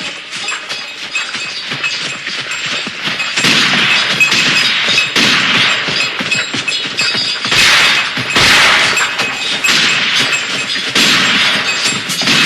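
A dense run of crash and impact sound effects following closely on one another, with swelling noisy smashes.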